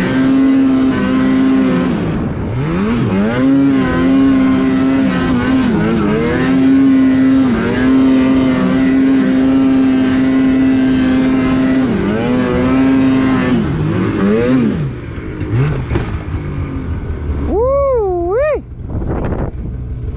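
Snowmobile engine held at high revs on a steep uphill climb, its pitch dipping and recovering several times as the throttle eases and reopens. After about fifteen seconds the revs drop and it runs lower and quieter.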